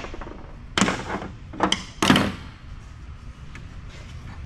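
Metal parts of a telecom power assembly clacking and knocking as they are handled by hand: one sharp knock about a second in, then two more close together near the middle.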